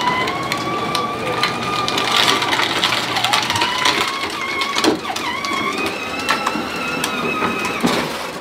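Battery-powered ride-on toy truck running, its electric motor giving a steady whine that dips briefly a few times, over gear rattle and scattered clicks. It cuts off at the end.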